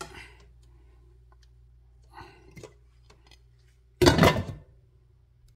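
Low steady kitchen hum with a few faint clicks, then one loud, brief rustling clatter about four seconds in as a hand comes close over the pot of heating coconut milk.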